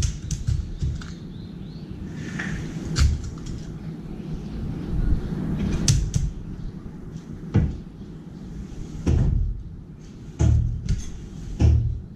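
A scattering of sharp taps and knocks, about eight spread unevenly: a crow's feet and bill tapping on a metal balcony railing, over a low steady outdoor rumble. The crow is not calling.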